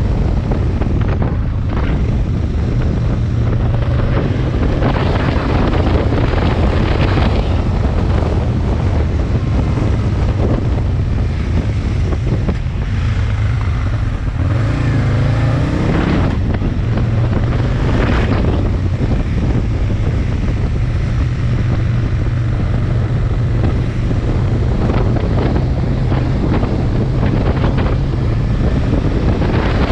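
Aprilia Tuono 1000 V-twin motorcycle running under way, with heavy wind noise on the microphone. The engine note rises in pitch about halfway through.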